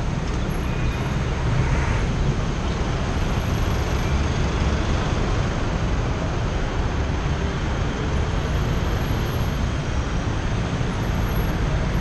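Steady road traffic noise with a heavy low rumble, picked up by a helmet-mounted GoPro Hero 4 Session's microphone while cycling slowly past cars.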